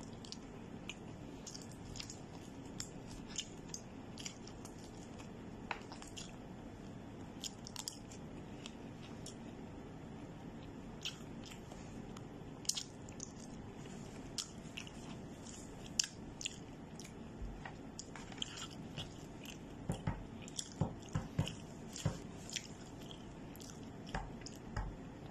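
Close-up eating of fried chicken and rice: chewing and biting, with many short crunches and clicks scattered over a steady low hum.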